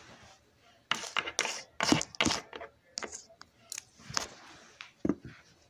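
A run of irregular short, sharp clicks and knocks, about a dozen, unevenly spaced with quiet gaps between them.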